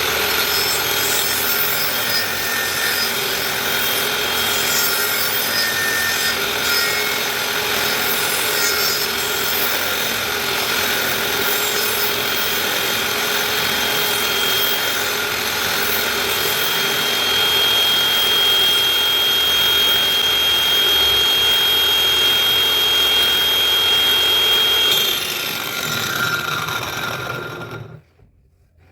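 A power tool working wood, a steady motor whine over a rough rasping noise. It winds down in pitch and stops near the end.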